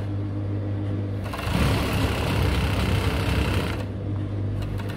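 Overlock (serger) machine stitching for about two and a half seconds, starting a little over a second in, as it sews an elastic waistband onto the waist of trousers. A steady low hum runs underneath.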